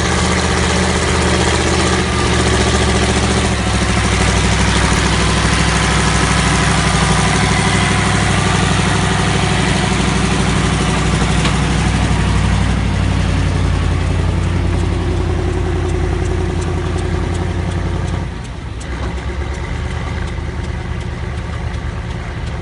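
Ford FW60 articulated four-wheel-drive tractor's big diesel engine running steadily while ploughing. About three-quarters of the way through, the engine note falls and gets quieter.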